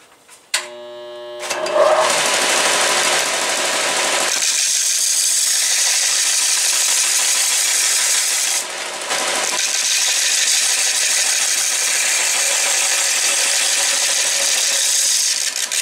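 An electric belt sander's motor hums as it starts up, then a steel chainsaw bar's rail is ground against the running sanding belt in a loud steady hiss that dips briefly about nine seconds in. This is bar dressing: sanding the bar's uneven, pitted rails flat so that the chain stops cutting crooked.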